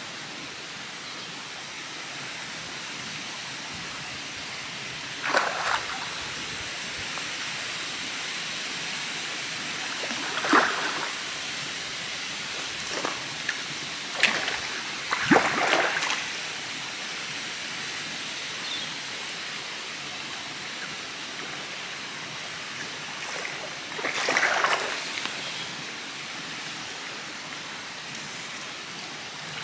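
A hooked common carp splashing at the water's surface about five times while being played on a carp rod, the biggest splashes around the middle, over a steady background hiss.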